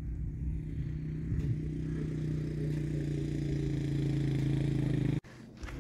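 Firefighting air tanker flying overhead: a steady engine drone that slowly grows louder, then cuts off suddenly about five seconds in.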